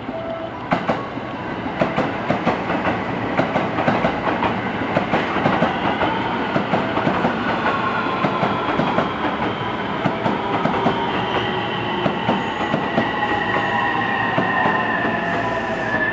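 Train moving along the platform, its wheels clattering rapidly over rail joints and points. Several whining tones slowly fall in pitch from about a third of the way in, as the train slows.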